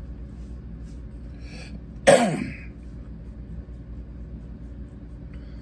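A person coughs once, sharply, about two seconds in, over a steady low hum.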